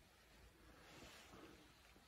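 Near silence: room tone, with a faint rustle in the middle.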